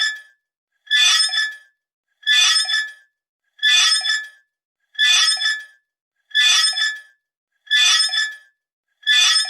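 Metal hammer flutter sound effect: a short, bright metallic ring with a few clear tones and a fluttering decay. The same clip repeats about every second and a half, seven times in a row.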